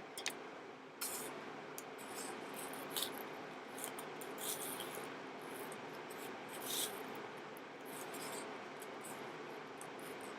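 Faint scattered rustling and light clicks of things being handled, over a steady low room hum.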